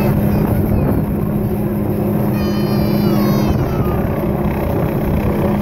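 Small helicopter hovering low overhead: a loud, steady engine hum with pulsing rotor chop. A brief high-pitched wavering sound rises over it about halfway through.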